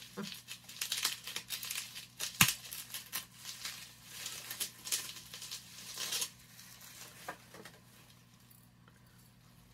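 Plastic wrapping crinkling and tearing as a small bottle is unwrapped by hand: a quick run of crackles with one sharp snap about two and a half seconds in, dying down after about six seconds.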